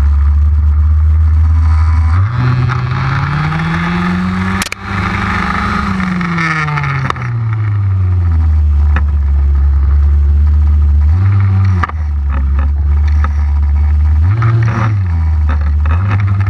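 Two-stroke petrol engine of an HPI Baja 5B large-scale RC buggy, heard from a camera mounted on the car. It runs steadily, revs up from about two seconds in and falls back, and gives brief throttle blips later. A sharp knock comes near the middle.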